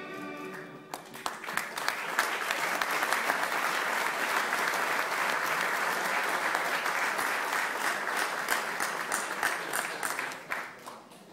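Audience applauding: dense, steady clapping that swells in about a second in and dies away near the end.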